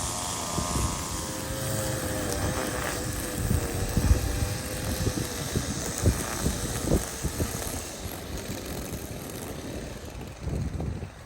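An engine running with a steady pitched hum that drifts slightly lower over the first few seconds, over irregular low thumps.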